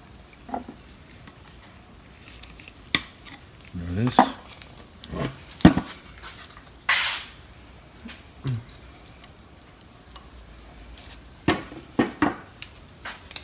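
Small steel brake-pad clips clinking and clicking as they are worked onto a 2012 Ford Expedition's front brake caliper bracket and knocked against the workbench. The sound comes as scattered metal clicks and knocks, with a short scrape about seven seconds in.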